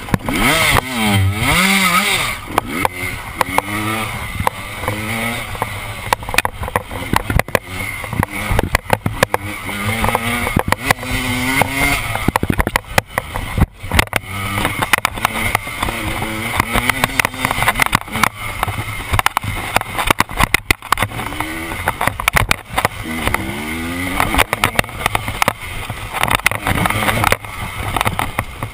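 KTM dirt bike engine revving up and down repeatedly as the bike is ridden hard along a rough trail, with frequent knocks and rattles from the bike hitting bumps.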